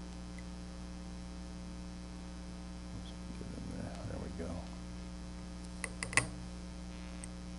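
Allen key working the small socket-head screws of a mill's stepper motor mount as they are broken loose: faint handling sounds, then a quick cluster of three or four sharp metal clicks about six seconds in, over a steady mains hum.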